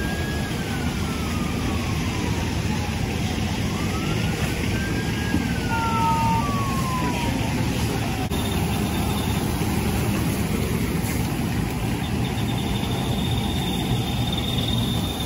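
Steady, loud rumble and hiss of a fire engine running with its hose streams spraying water. A distant siren wails twice in the first half, each time rising, then slowly falling.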